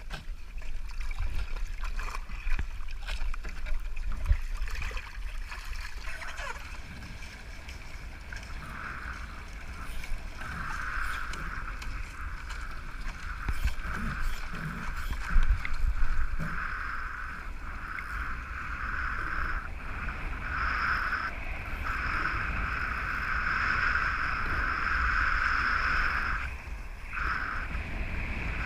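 Voodoo Moth foiling dinghy under sail: wind buffets the microphone with a steady low rumble over rushing water. From about nine seconds in, a high whine comes and goes in stretches of a second or more.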